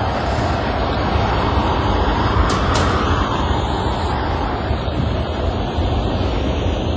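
Steady road and engine noise of a car driving, with a swell that rises and falls about halfway through.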